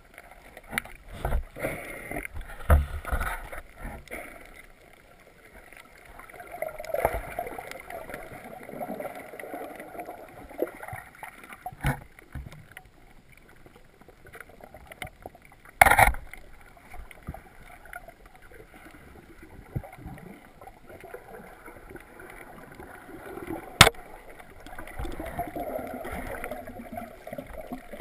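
Water sloshing and bubbling around a snorkeler's GoPro camera, with a few sharp knocks scattered through.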